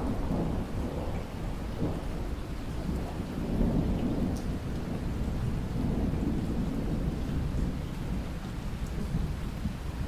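Steady rain with low, rolling thunder rumbling under it, swelling and easing over the whole stretch.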